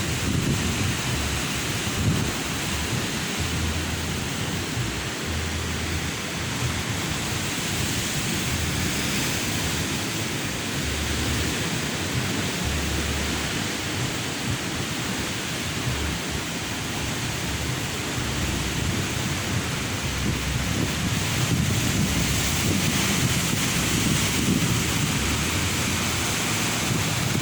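Ocean surf breaking on a beach, a steady rushing wash of waves, with wind buffeting the microphone as low rumbles.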